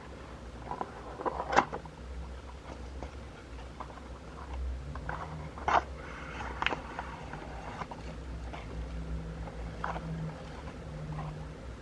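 Paperboard tea box handled and opened by hand: cardboard rustling and scraping with a few sharp clicks and snaps as the tuck flap is pulled open, the loudest about one and a half seconds in and two more close together near the middle, and a paper tea-bag sachet comes out.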